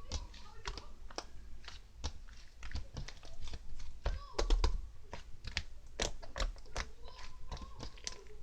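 Rapid, irregular clicking and tapping, like typing on a keyboard, with a louder cluster of knocks around the middle.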